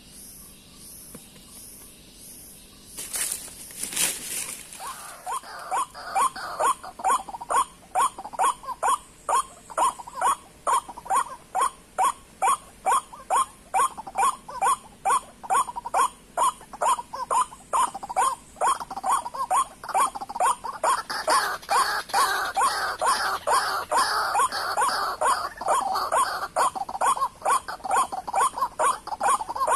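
White-breasted waterhen calls: a loud, monotonous croaking 'kwak' repeated fast and evenly, about three times a second, starting some five seconds in and thickening with more voices later on. A short burst of noise comes just before the calling starts, and a faint pulsing insect-like hiss runs underneath.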